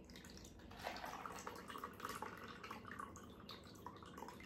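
Ice water trickling and dripping faintly as it is poured slowly from a plastic measuring pitcher into a glass measuring cup, the ice held back in the pitcher.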